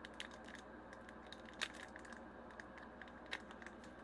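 Faint crinkling and small clicks of a foil Pokémon booster pack being handled, with two sharper clicks, one about one and a half seconds in and one near the end.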